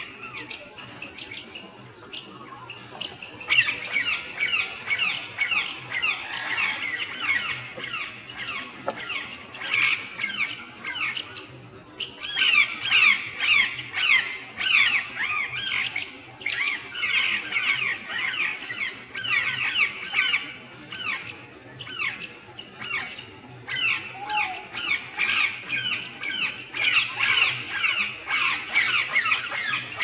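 A flock of rose-ringed parakeets calling: a dense chatter of rapid, shrill squawks. It is sparse for the first few seconds, then fills in to an almost unbroken din about three and a half seconds in.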